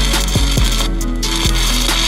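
Stick-welding arc burning a 7018 electrode on thick steel brackets: a loud, steady crackle and sizzle with frequent sharp pops. The crackle thins briefly about a second in.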